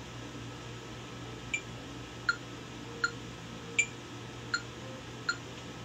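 Metronome ticking at quarter note = 80, about one click every three-quarters of a second, six clicks starting about a second and a half in, some a little louder than others. A steady low hum lies underneath.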